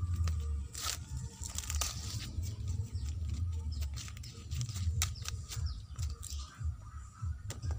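Dry corn husks and leaves crackling and tearing as ears of corn are pulled from the stalk and husked by hand, in many sharp, irregular crackles over a low rumble.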